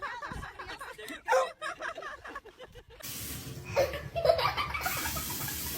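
Laughter for about three seconds, then an abrupt switch to a steady hiss of noise with a few brief voice sounds.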